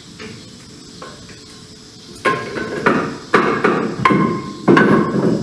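A run of five sharp metallic knocks, about two a second, each leaving a short ringing tone: metal being struck or knocked against metal. It starts about two seconds in.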